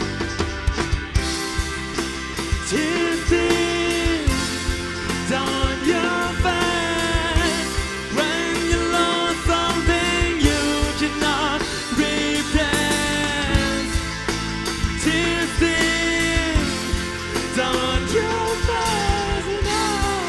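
Live rock band playing amplified electric guitar, keyboards and drums. A man starts singing into a microphone about two seconds in.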